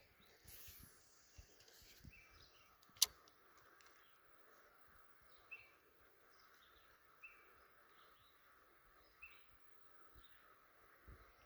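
Faint outdoor ambience: a bird repeating a short chirp every two seconds or so over a steady high drone. There is one sharp click about three seconds in.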